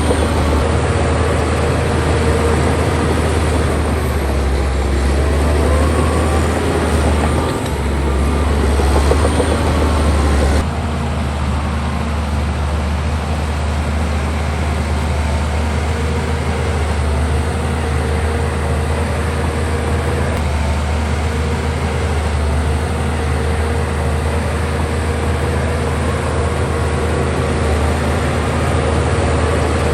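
Heavy diesel earthmoving machinery running steadily under load, with a deep engine hum. The sound changes abruptly about ten seconds in.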